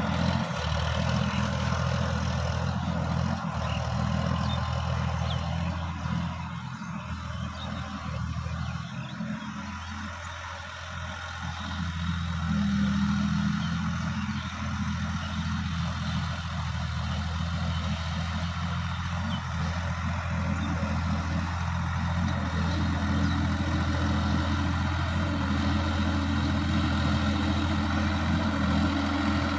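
Sonalika DI-50 RX tractor's diesel engine running steadily under load while it pulls a rotary tiller through dry soil. The sound fades somewhat in the middle as the tractor moves off, then grows louder again as it comes back.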